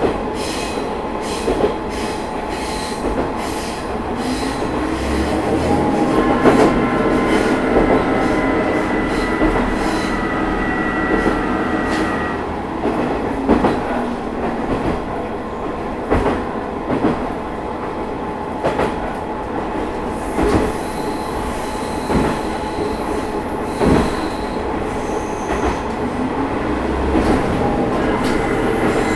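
Matsuura Railway MR-600 class diesel railcar running, heard from on board: a steady running rumble with repeated rail-joint clicks. A high wheel squeal sets in about a quarter of the way in and again near the end.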